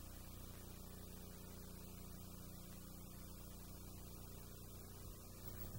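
Faint, steady electrical mains hum with hiss, typical of a transferred videotape's soundtrack between segments.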